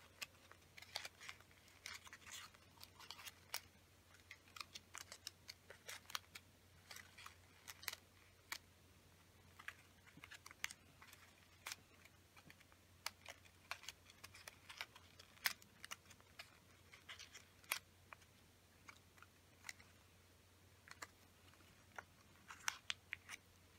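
Folded origami paper crinkling and crackling as fingers press and shape the petals of a modular paper flower: many small, irregular rustles and clicks, over a faint steady low hum.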